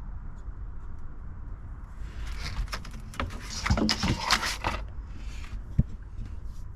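Clicks, light knocks and scraping as the old spa heater assembly is handled, clustered in the middle, with one sharp click near the end, over a steady low rumble.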